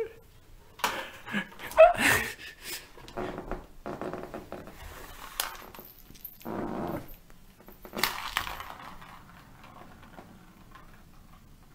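House cats playing: a run of irregular scuffling, rustling and knocking noises, loudest about two seconds in, tailing off near the end.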